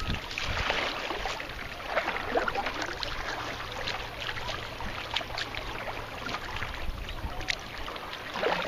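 Water splashing and sloshing as a kayaker paddles a sea kayak with his bare hands, scooping the water beside the hull in irregular strokes.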